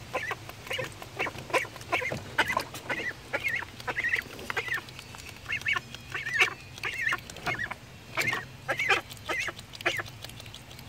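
Young ducklings calling over and over in short, high peeps, about two or three a second.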